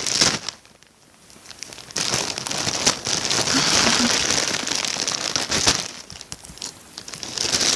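Plastic surprise-bag packaging crinkling and crackling in the hands as it is worked at to get it open, in two longer stretches with a short lull about a second in.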